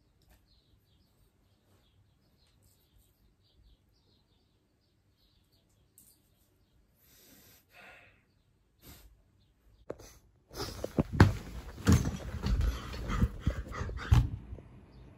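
A quiet room with faint small movements. About ten seconds in come roughly four seconds of loud rustling and knocking handling noise as a handheld camera is moved.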